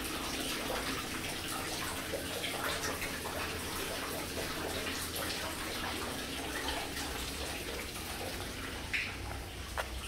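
Steady sound of running, splashing water with scattered drips and light clicks.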